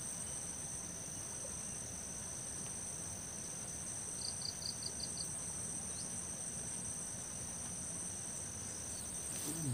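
Insects chirring: two steady, high-pitched shrill tones that run on without a break, with a short run of six quick, high chirps about four seconds in.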